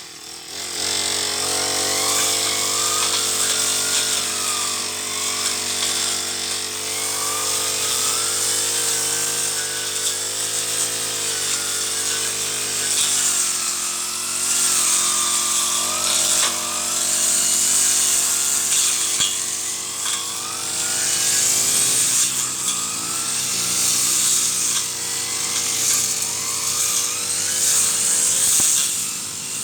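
Petrol brush cutter engine running steadily while cutting weeds, its pitch dipping and rising as the load changes.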